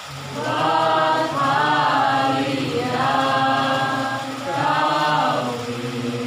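Voices singing a slow Indonesian Christian worship song in three long held phrases over a steady low accompanying tone.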